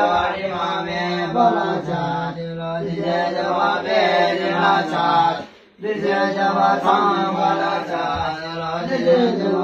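Buddhist prayer chanting: a steady, melodic recitation that breaks off briefly for breath about six seconds in, then carries on.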